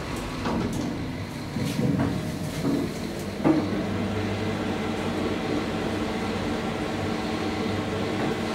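Amsler machine-room-less traction elevator setting off: a few knocks and a sharp clunk about three and a half seconds in, then a steady low hum of the drive as the car travels up the shaft.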